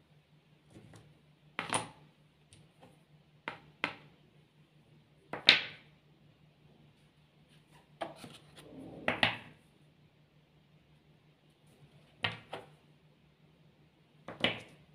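Domino tiles clicking as they are picked up, handled and set down on the table, a scattered series of short, sharp clacks, some in quick pairs, the loudest about halfway through. A faint steady hum lies underneath.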